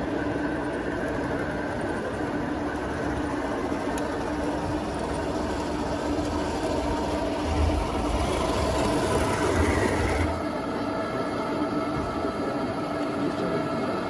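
1/16 remote-control model tanks running with a steady engine-like hum of several fixed tones, and a low rumble that swells between about seven and ten seconds in.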